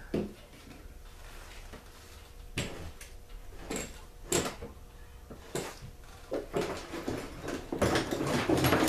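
Tools and parts being rummaged on a cluttered workbench: scattered knocks and clunks, with a denser, louder clatter near the end.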